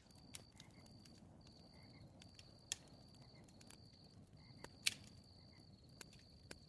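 Crackling campfire: scattered sharp pops and snaps over a soft low rumble of flame, the loudest pops just under 3 seconds in and about 5 seconds in. A cricket chirps over it in short, evenly repeating high trills.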